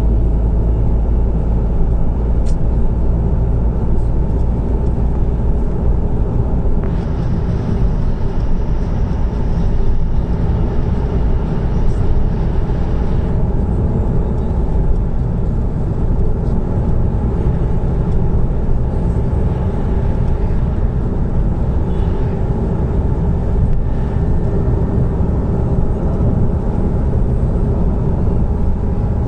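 Steady road noise inside a moving car at highway speed: engine and tyre rumble. A brighter hiss joins for about six seconds near the middle.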